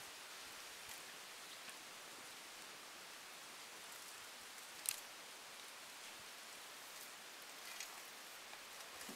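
Faint steady outdoor hiss with a few light ticks, and one sharp click about five seconds in.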